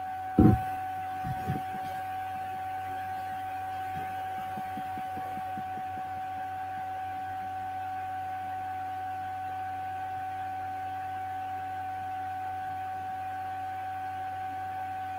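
A steady electronic tone over a low electrical hum, the kind of unwanted tone a home live-stream audio setup can carry. It is broken by a knock about half a second in and two softer knocks about a second later.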